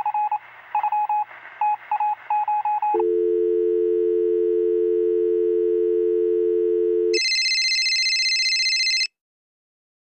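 Telephone tones: a quick run of keypad dialing beeps, then a steady low two-note tone for about four seconds, then a shrill higher tone for about two seconds that cuts off suddenly.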